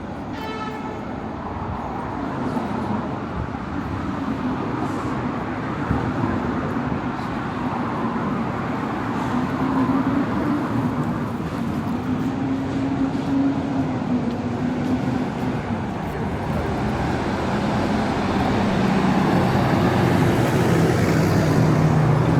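Street traffic: a steady wash of engine and tyre noise, growing louder toward the end as a vehicle passes close.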